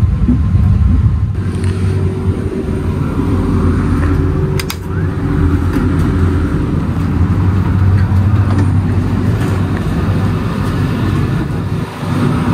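A passenger train coach running on the rails, heard from inside the car: a steady low rumble with a couple of sharp clicks about four and a half seconds in.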